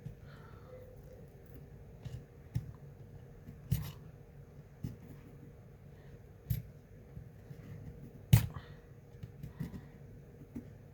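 Small tools clicking and scraping against an iPhone 6S while its screen is pried loose. There are sharp clicks at irregular intervals, the loudest about eight seconds in. The screen is held down by extra glue from an earlier repair, so it comes away stiffly.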